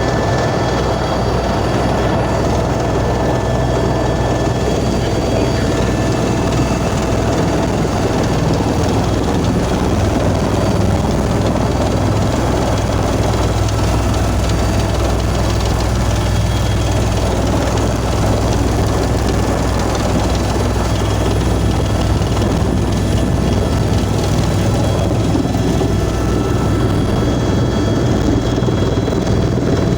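Helicopter running close by: loud, steady rotor and engine noise.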